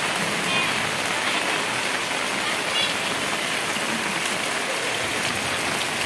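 Heavy rain falling steadily: a dense, even hiss of a downpour.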